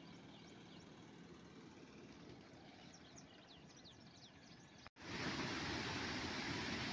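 Faint outdoor background with a few short bird chirps. About five seconds in it cuts suddenly to a loud, steady rush of river water pouring over a check dam's weir.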